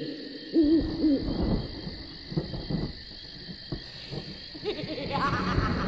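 Owl-like hooting, a series of short hoots, over a steady high chirring in the background, with a rising wail coming in near the end.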